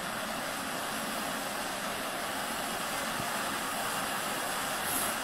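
Gas torch hissing steadily as it heats a stuck plug in the engine block toward cherry red.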